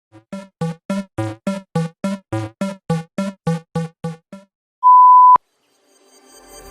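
Electronic sound effect: a quick run of about fifteen short pitched blips, then a single half-second steady beep that cuts off with a click. Background music fades in near the end.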